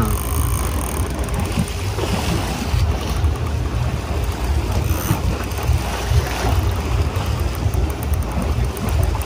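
Wind buffeting the microphone on a boat at sea: a loud, gusting low rumble over an even wash of sea noise.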